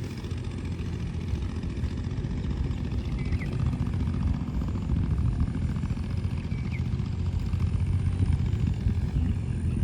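Wind buffeting the microphone: a steady, fluttering low rumble. Two faint short bird chirps come through, about three seconds in and again near seven seconds.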